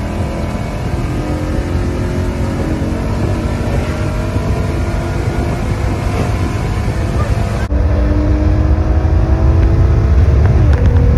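Car engine running hard under acceleration, its pitch climbing slowly. About eight seconds in the sound changes abruptly and turns louder and heavier in the low end.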